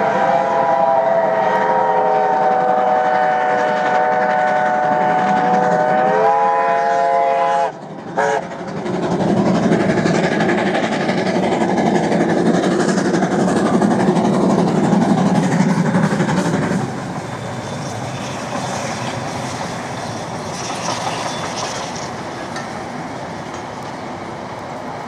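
Whistle of NZR Ab-class steam locomotive Ab608 blowing one long chime that rises slightly in pitch just before it cuts off about eight seconds in, then a brief second toot. The train's running rumble follows, loud for several seconds and easing off after about seventeen seconds.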